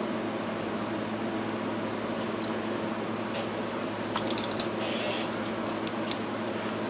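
Steady fan hum with a run of small sharp clicks and taps from about two seconds in, and a short hiss a little before five seconds: small hand tools working on a circuit board under the hum.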